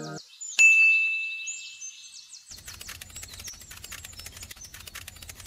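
Birds chirping, opened about half a second in by a bright ding that rings on steadily for about two seconds. After that, many fast faint ticks run under the birdsong.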